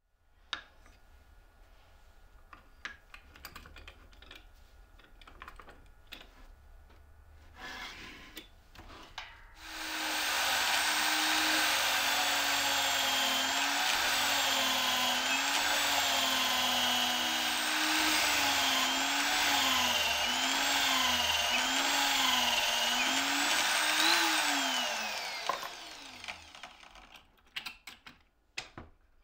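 Light clicks and knocks of wood being set in a vise, then an electric drill mounted in a homemade wooden drill stand starts and runs, boring into wood with a Forstner bit. Its whine dips in pitch and recovers several times as the bit is fed into the wood under load, then it switches off and spins down with a falling pitch, followed by a few light clicks.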